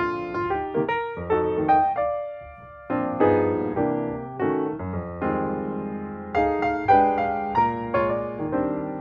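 Background music: a gentle piano or electric piano piece playing chords and a melody, note by note.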